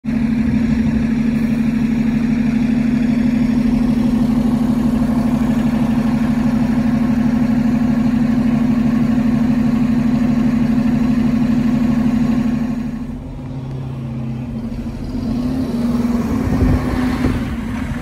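City transit bus engine running close by with a steady loud drone while the bus stands at the stop. About thirteen seconds in, the note drops and changes, then the engine revs up as the bus pulls away.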